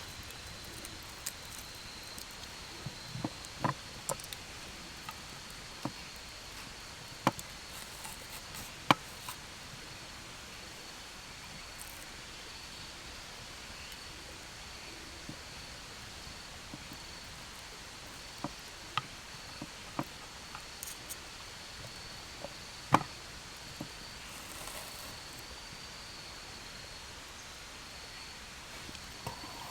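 Insects trilling steadily on one high note, with scattered short, sharp pops and clicks.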